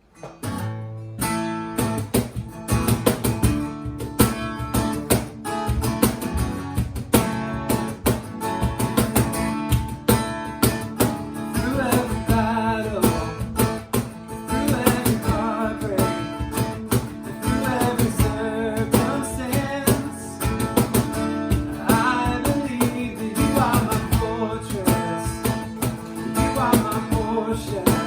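Music led by strummed acoustic guitar with a steady beat, a voice singing over it from about eleven seconds in.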